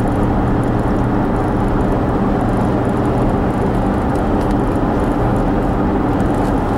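Car running steadily: a constant low engine hum with road noise.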